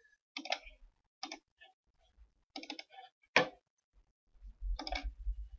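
Computer mouse clicks: about five short, sharp clicks at uneven intervals, the loudest a little past the middle. A low rumble sets in near the end.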